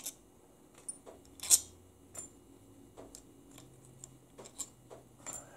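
Loosened valve body bolts of a U140 automatic transaxle being pulled out by hand and set down: a scattering of light metallic clicks and ticks, with one louder clink about one and a half seconds in.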